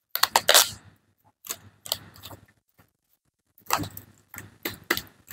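Irregular short clicks, crackles and rustles of close-up handling, coming in three clusters with short gaps between them.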